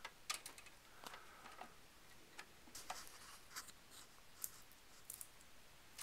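Faint scattered clicks, taps and light scraping of a graphics card being handled and fitted back into a Power Mac G5, with a small cluster of clicks about halfway through.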